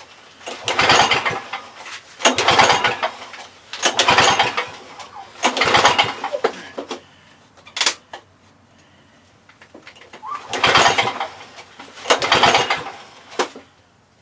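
Lawn Boy two-stroke push mower being pull-started again and again: six recoil-starter pulls, each a burst of about a second of rope and cranking engine, with a short pause after the fourth and two sharp clicks. The engine does not keep running between pulls; it is a no-start even after a shot of two-stroke mix in the cylinder.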